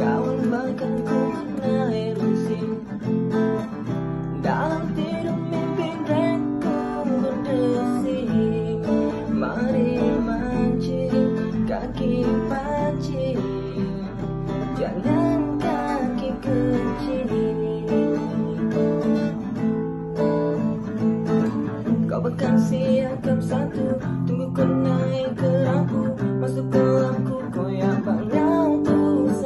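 Music: a song with strummed acoustic guitar and singing.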